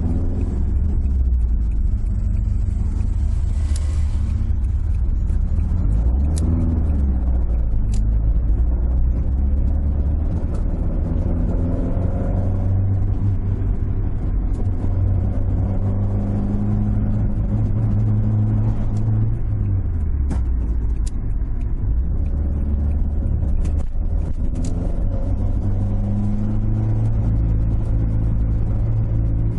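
Toyota AE86's 4A-GE inline-four engine heard from inside the cabin while driving, its pitch rising and falling several times with the throttle. The engine is running poorly, with a symptom the owner suspects comes from bad fuel supply from the tank.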